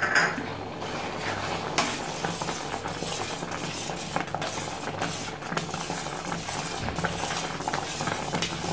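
Metal spatula stirring a thick milk-and-jaggery mixture with rice dumplings in a stainless steel kadai, scraping the pan with many small clinks, over a steady low hum.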